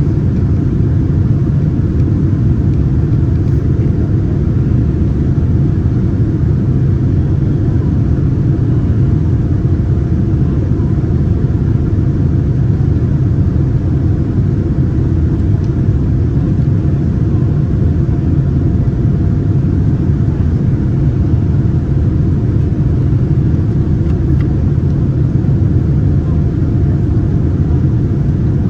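Steady, loud cabin rumble of a Boeing 787 Dreamliner in flight: engine and airflow noise heard from inside the passenger cabin, with a faint steady hum above it.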